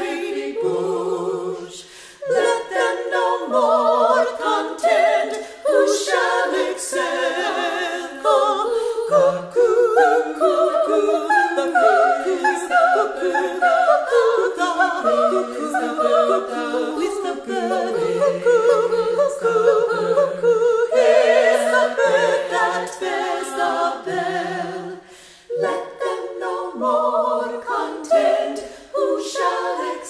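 All-women's a cappella ensemble singing a Renaissance song in several interweaving voice parts, with brief breaks between phrases.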